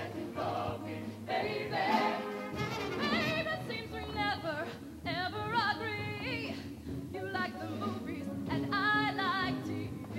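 High school show choir singing, with a male and a female soloist on handheld microphones over the choir; the solo voice wavers with vibrato.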